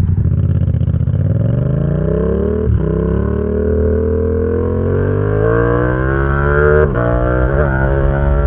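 Yamaha XSR700's 689 cc parallel-twin engine through an SC Project exhaust, accelerating with the revs climbing steadily. The drive cuts for an instant twice, about a third of the way in and near the end, as the quickshifter makes clutchless upshifts, and the revs drop and climb again after each.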